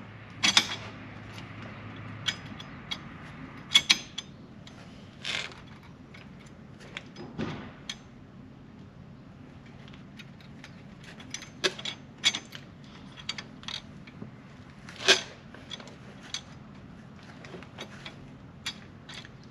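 Irregular metallic clicks, clinks and light knocks as brake pads and their retaining pin are worked into a Hellcat's red brake caliper, the pad being shifted to line the pin up. Louder knocks come about four seconds in and again near fifteen seconds.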